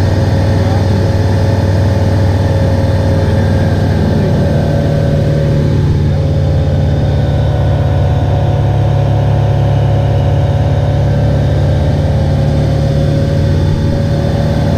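FK14 Polaris light aircraft's piston engine and propeller droning steadily in flight, holding an even pitch, with a faint higher steady tone over it.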